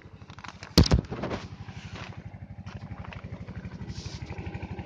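An engine idles nearby with a rapid, even low thrum. About a second in there is a loud knock followed by rustling as a padded jacket brushes against the microphone.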